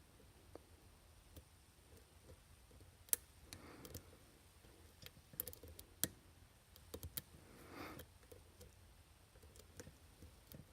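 Faint, scattered clicks and ticks of a lock pick and tension wrench working the pins inside a Master Lock Pro Series 7045 padlock, the sharpest click about three seconds in.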